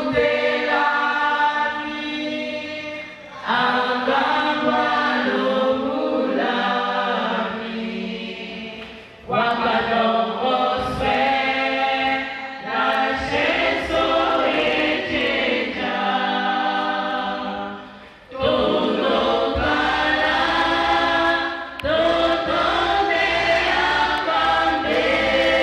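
A women's choir singing together in long sustained phrases, with brief breaks between phrases.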